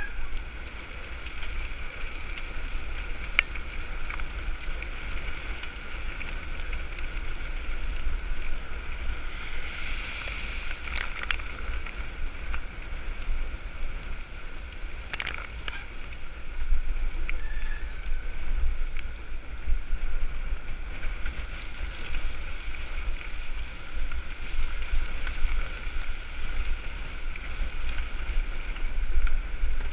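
Wind buffeting the microphone of a handlebar-mounted action camera on a mountain bike ridden fast in a race pack, a steady low rumble, with a few sharp clicks now and then.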